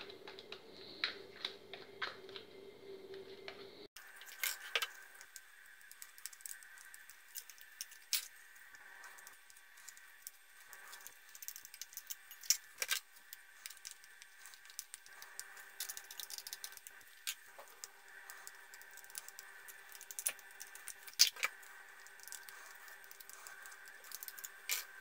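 Scattered light taps and clicks of a plastic spatula and plastic tubs against a glass bowl as gelatin cubes are scooped into it, over a faint steady hum.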